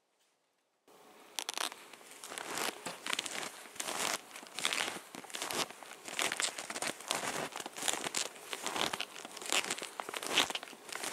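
Footsteps crunching through fresh, deep snow at a steady walking pace, with rustling of clothing and gear, starting suddenly about a second in.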